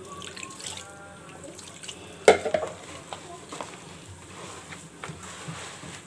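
Hands rubbing and squeezing oiled semolina in a plastic bowl: a soft gritty rustling with scattered light clicks, and one sharp knock a little after two seconds in.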